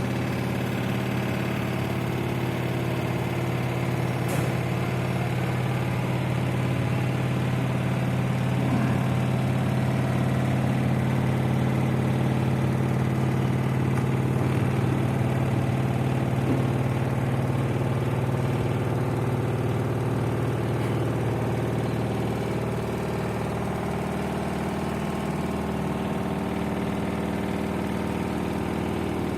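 LG FV1450S1B front-loading washing machine running its spin cycle, a steady mechanical hum with an odd extra noise the owner likens to a bolt that isn't tight enough. The low hum eases a little about three-quarters of the way through.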